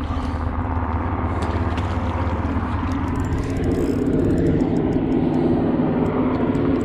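A firefighting aircraft's engine drones steadily and grows louder about halfway through as it comes closer.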